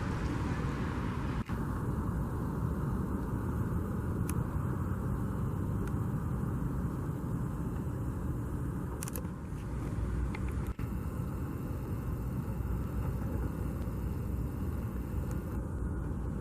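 Steady low rumble of outdoor background noise with no clear single source, broken by two very brief dropouts, about a second and a half in and near eleven seconds in.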